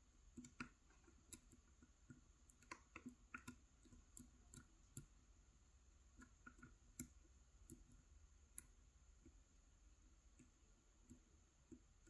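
Faint, irregular clicks of a steel lock pick working the pins of a tiny brass challenge lock, the pick also serving as the tensioner. The clicks come thickly in the first half and more sparsely later.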